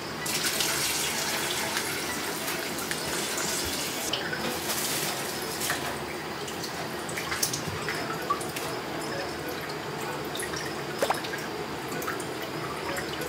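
Kitchen tap coming on just after the start and running into the sink, with a few light knocks.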